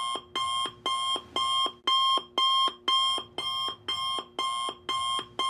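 Alarm clock alarm going off: the same short ringing tone pattern repeats evenly, about two times a second.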